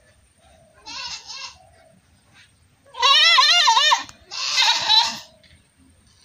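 Goat bleating: a short faint bleat about a second in, then a loud bleat with a wavering pitch at about three seconds, followed at once by a second, rougher bleat.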